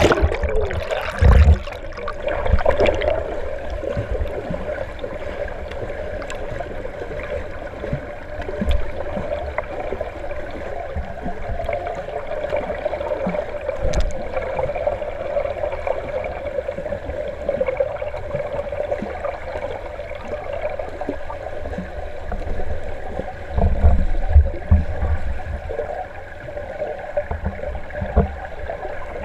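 Pool water heard from under the surface, muffled: a steady gurgling wash from a swimmer's freestyle strokes and kicks, with low thumps about a second in and again around 24 seconds.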